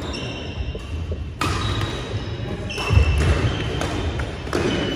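Badminton rally in a hall: rackets striking the shuttlecock with sharp cracks, shoes squeaking and feet thudding on the wooden court floor, echoing in the large room.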